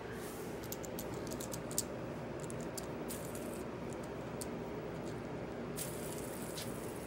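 Light clicks and taps of a plastic fidget spinner being handled on a hard vinyl floor, then set spinning, over a steady low background hum.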